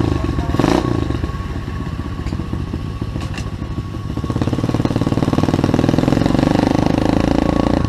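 Small four-stroke pit bike engines running, getting louder about halfway through and holding there as one is given more throttle or comes closer.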